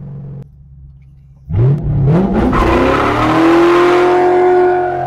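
Mercury Grand Marquis V8 under acceleration. The engine note drops and goes quiet for about a second, then the engine revs up hard. Its pitch climbs steeply for a couple of seconds, then holds steady at high revs, easing slightly near the end.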